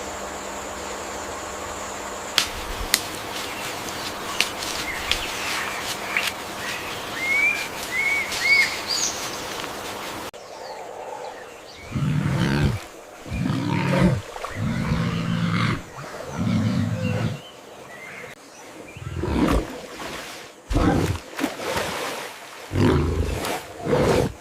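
Forest ambience with a few high bird chirps, then after an abrupt cut about ten seconds in, a series of deep roars from a large animal, each lasting about a second.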